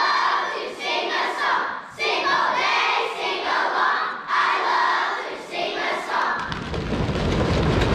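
A large children's choir singing loudly, almost shouting, in short phrases that start about every two seconds. About six seconds in, a low rumbling noise joins the voices.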